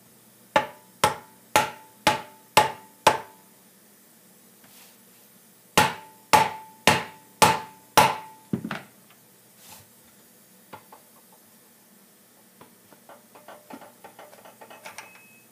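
Soft rubber mallet tapping the outer edge of a small Honda engine's metal gearbox cover to knock it loose: two runs of about five sharp taps, roughly two a second, each with a brief ring. Near the end come faint clicks and rattles as the cover is worked off by hand.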